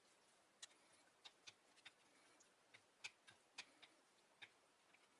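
Faint, irregular clicks of wooden chopsticks knocking against an earthenware pot as noodles are tossed, about a dozen over a few seconds.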